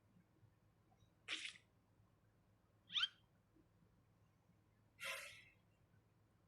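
Three short, separate sound effects about two seconds apart, each a brief noisy burst with near silence between; the second is the loudest and quickest, and the third is the longest, tailing off.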